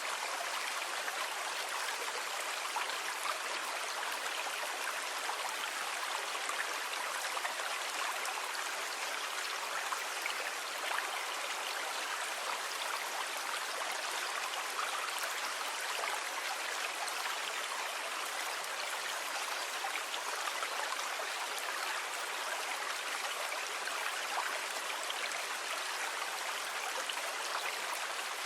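Steady rushing of water: an even hiss with no low rumble and no rise and fall of breaking waves.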